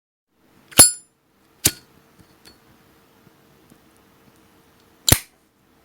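Zippo lighter clicking: a sharp metallic clink with a brief ring as the lid flips open, a second click just under a second later, and a third sharp click about three and a half seconds after that as the lid snaps shut.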